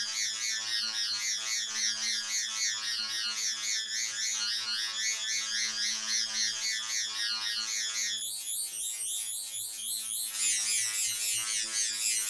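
A wheezing sound clip digitally processed with stacked 4ormulator effects: a dense, buzzy, electronic-sounding fast warble high up over a steady low hum. It jumps higher in pitch about eight seconds in.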